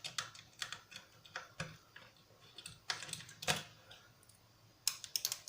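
Irregular light clicks and taps of small plastic and electronic parts being handled while a remote-control transmitter is taken apart, about a dozen scattered clicks with short gaps between them.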